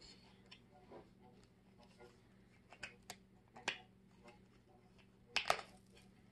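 A cardboard tarot deck box and cards being handled: scattered light taps and rustles, with a sharper pair of clicks about five and a half seconds in.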